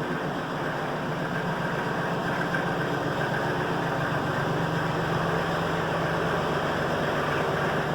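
An engine running steadily at idle, an even, unchanging hum that begins to fade out at the very end.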